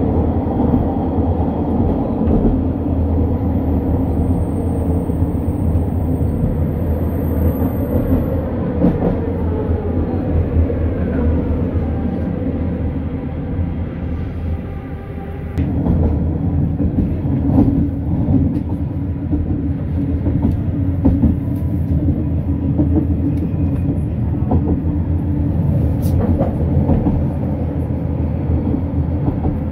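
Running noise inside a moving SkyTrain car: a steady rumble of wheels on the elevated track, with a faint whine that slides in pitch about ten seconds in. The noise dips briefly about halfway through, then comes back as loud as before.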